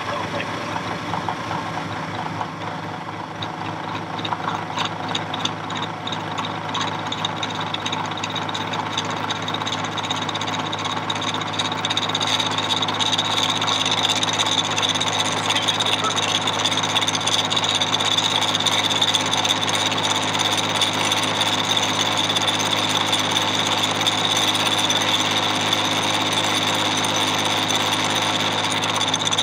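Jet JMD-18 round-column mill-drill cutting a full-depth half-inch keyway in annealed 4140 steel with a carbide end mill: a steady spindle hum with the whine of the cut. It grows louder about halfway through as the feed rises from 2 toward 3 inches per minute, a load the machinist finds a little heavy for the machine.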